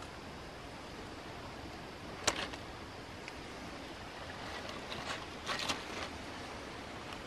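Garden scissors snipping flower stems: a sharp click about two seconds in and a few more around five seconds in, over a steady outdoor background hiss.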